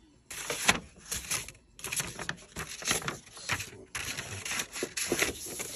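Paper rustling and crinkling with small clicks and taps as a model kit's instruction sheet is handled, starting about a third of a second in and going on irregularly.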